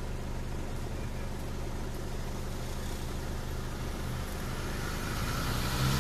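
Vehicle engines idling, a steady low hum. Near the end the noise swells as a jeep moves off.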